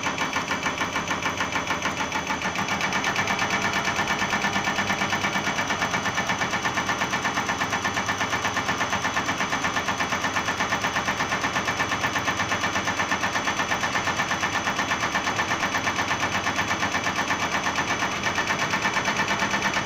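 CRS708/CR-XZ816 common rail test bench running its drive motor and cam box to pump a Cummins EUI electronic unit injector, a fast, even mechanical clatter of repeated injection strokes. The level steps up slightly about two and a half seconds in as the bench moves to a higher-speed test point, with a brief dip near the end at the next step change.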